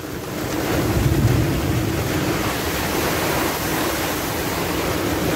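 Storm wind of about forty knots blowing over a sailboat, with rain, as a loud steady rushing noise with a low hum running beneath it; it grows louder about a second in and then holds.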